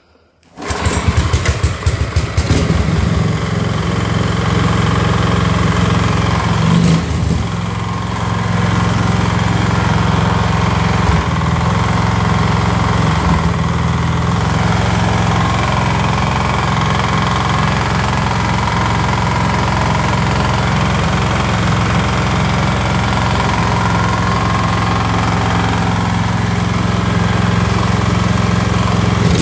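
Small snowblower engine starting about half a second in, then running steadily. Its knock is still there after the crankshaft's end play was shimmed out, and the owner suspects the crankshaft itself, since the bearings show no play.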